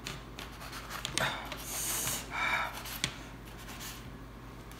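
Handling sounds as freshly baked bread rolls are touched and shifted on an aluminium tray: a few light taps on the metal and soft rubbing, with a short swish about two seconds in.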